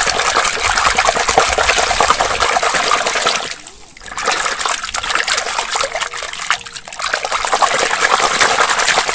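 A hand scrubbing a toy tiger in a tub of sudsy water: continuous sloshing and splashing, with a short lull a little before halfway.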